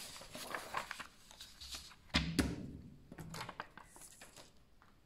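Sheets of paper being lifted, slid and shuffled on a wooden tabletop, in irregular rustles, with one dull thump about two seconds in.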